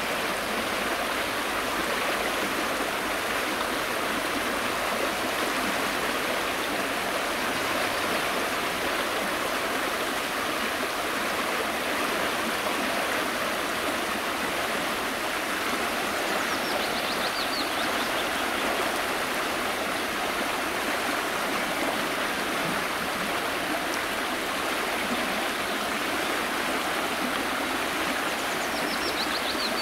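Fast spring floodwater of a small river rushing steadily over and around fallen tree trunks, a continuous even roar of rapids.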